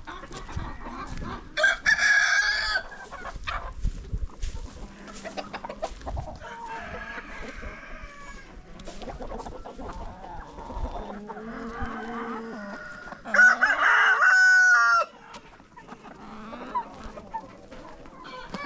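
A flock of chickens clucking, with a rooster crowing twice: once near the start and again about two-thirds of the way through, each crow lasting a second or so.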